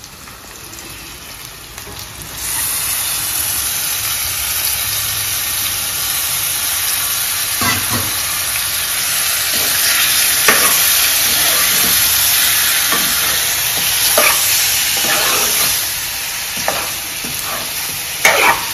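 Raw chicken pieces sizzling in hot oil with onions and spices in a frying pan. The sizzle grows louder about two seconds in, and a metal spoon scrapes and knocks against the pan several times as the chicken is stirred.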